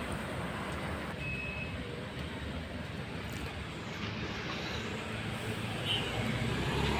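Steady background hum of street traffic, with a brief high tone about a second in.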